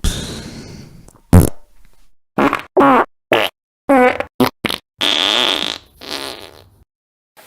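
A string of fart sound effects played one after another with short silent gaps, about ten in all. It opens with a long fading spluttery one, then several short buzzy farts with a clear pitch, then a longer hissing one about five seconds in.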